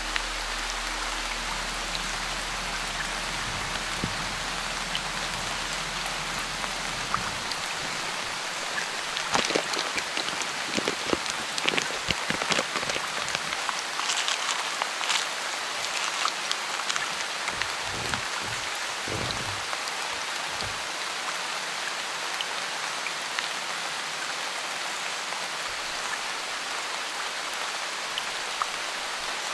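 Steady rain falling on a tent, an even hiss throughout. In the middle stretch come a run of sharp clicks and knocks from a cooking pot and utensils being handled, and a few dull thuds after them.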